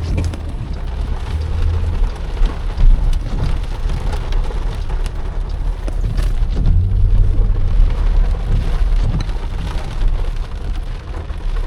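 Heavy rain pelting a car's body and windshield, heard from inside the cabin as a dense patter of drops over a steady low rumble.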